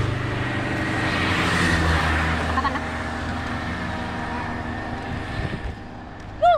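A motor vehicle's engine passing close by on the street, swelling and dropping in pitch as it goes past, then fading. Near the end comes a brief, loud, high call.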